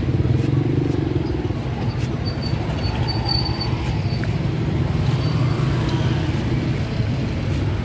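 Steady low engine rumble of motor traffic.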